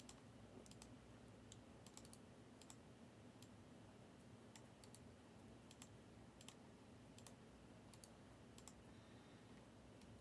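Near silence with faint, irregular clicks, several dozen scattered through the stretch, some in quick pairs.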